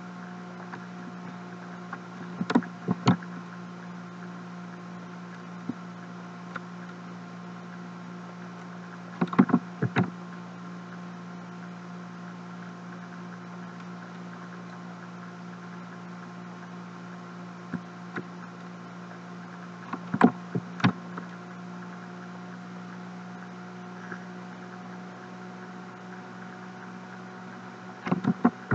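Computer mouse clicking in four short groups of two to four quick clicks, over a steady electrical hum from the recording setup.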